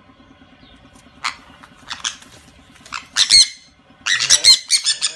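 Two sun conures squawking: a few short, shrill single squawks spaced about a second apart, then a rapid flurry of squawks near the end as the two birds scuffle.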